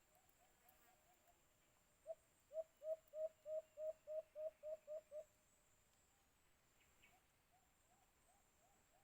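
White-eared brown dove calling: a series of about eleven hooting coos that speed up slightly, starting about two seconds in. A fainter dove gives the same kind of hooting series at the start and again near the end.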